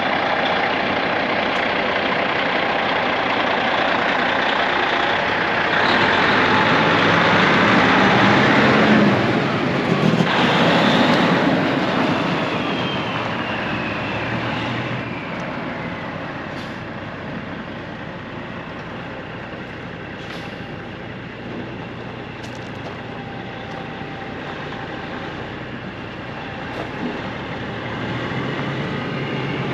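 A semi truck's diesel engine pulling away across gravel. The sound is loudest for a few seconds early on, has a high whine that falls in pitch around the middle, then fades as the truck drives off.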